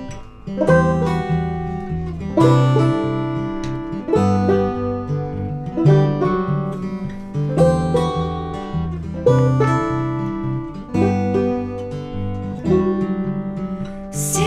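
Banjo playing an instrumental break: picked notes and chords, with a strong strummed chord about every second and a half.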